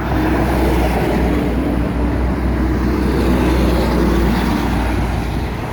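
Semi-trucks in a convoy passing by on the road: steady engine and tyre noise with a deep rumble, loud throughout.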